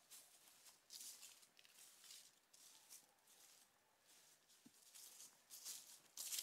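Faint, irregular footsteps rustling through dry fallen leaves, with a short lull a little past halfway.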